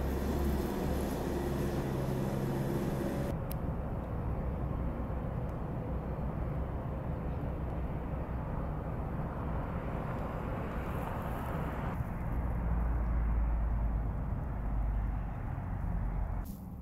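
Skid-steer loader with a front sweeper attachment, its engine running as a steady drone with several pitched tones, which cuts off abruptly a few seconds in. After that comes an even outdoor background noise, with a deeper rumble from about twelve to sixteen seconds in.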